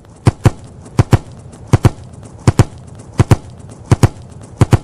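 Clip-clop of horse hooves, a steady trotting rhythm of sharp paired clicks, about one pair every three quarters of a second.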